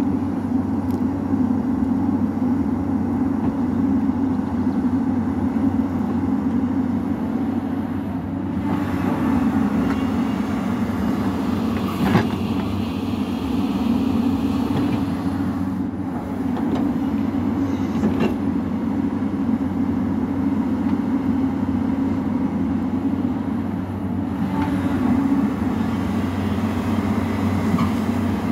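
Hyundai 215L crawler excavator's diesel engine running steadily under load as it digs and swings, with a brighter, hissier stretch in the middle and a sharp knock about twelve seconds in.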